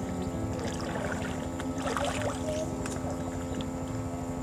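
Steady drone of a boat engine, with a few light clicks and rustles about a second or two in.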